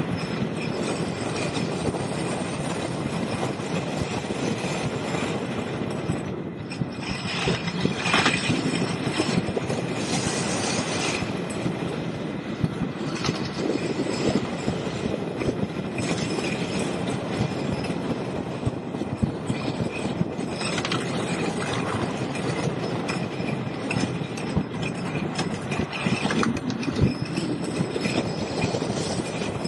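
Wooden roller coaster train running along its wooden track, heard from on board: a steady rumble and clatter of the wheels over the track, full of small clicks and knocks.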